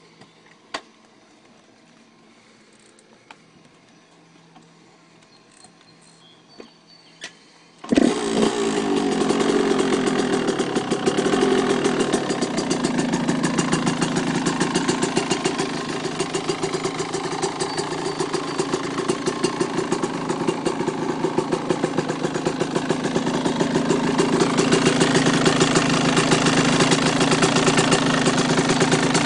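1998 Yamaha YZ125's 125cc two-stroke single-cylinder engine with an aftermarket exhaust, cold-started: a few faint clicks, then the engine catches suddenly about eight seconds in and keeps running with a fast, even popping beat, getting a little louder near the end.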